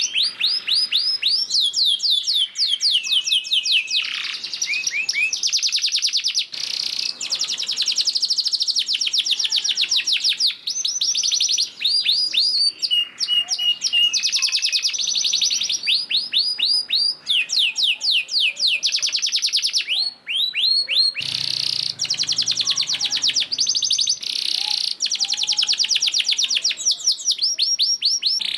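Domestic canary singing a long, continuous song of rapid trills: fast runs of repeated downward-sweeping notes, each run lasting a second or two, with brief breaks between them.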